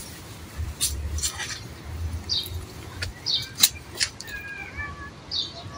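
Short mews from a kitten and high bird chirps, with a few sharp clicks scattered through; a longer gliding call comes in the second half.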